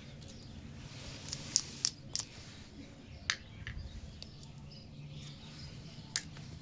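Small plastic toy kitchen pieces being handled, giving a few sharp, separate clicks and taps over a low background.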